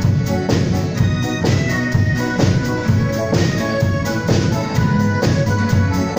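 Live band music: drum kit, guitar and keyboards playing together with a steady beat.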